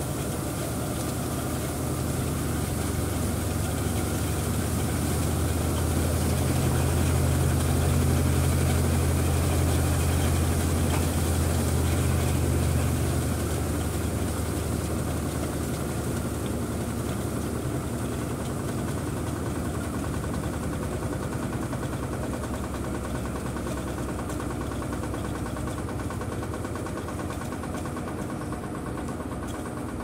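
Electrolux Turbo 15 kg top-loading washing machine in its spin cycle, the basket whirling at speed with a steady low hum from motor and drum. The hum swells about a third of the way in, then eases a little and runs on steady.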